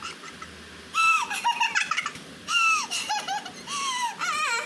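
A young child's high-pitched vocalizing in three short bursts: about a second in, around two and a half seconds in, and near four seconds in, the pitch sliding and wavering.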